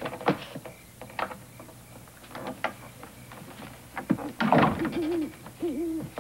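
A few clicks and knocks of a door latch and knob, a louder door clatter past the middle, then an owl hooting a few times near the end.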